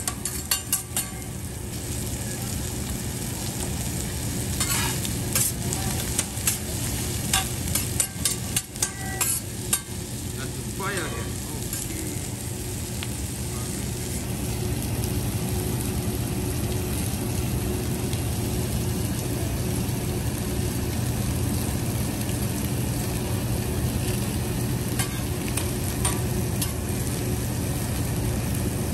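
Metal spatulas tapping and scraping on a steel teppanyaki griddle, in sharp clicks through roughly the first ten seconds, over a steady sizzle of food frying on the hot plate. A steady low hum runs under it.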